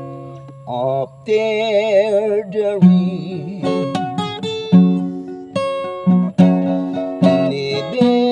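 A man singing to his own acoustic guitar. A chord rings out and fades, then he holds a sung line with a wide vibrato, and from about three seconds in he strums chords again beneath his voice.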